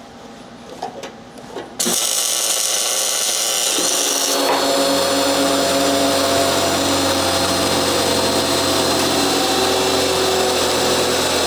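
Handheld electric power tool starting about two seconds in and running steadily, its sound deepening as it bears into the work about four and a half seconds in, then cutting off abruptly.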